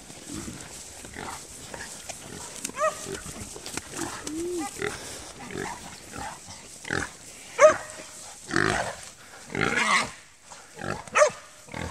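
Hog squealing and grunting in a string of short, sharp cries while caught and held by hunting dogs.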